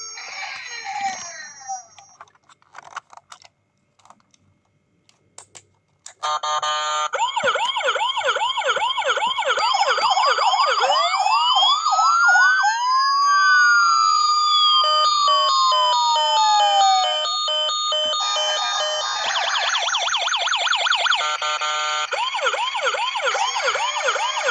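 Electronic siren sounds from a toy fire truck: after a few seconds of quiet with a few small clicks, several siren patterns start together about six seconds in and overlap, fast repeating yelps with a slower wail that rises and falls in the middle.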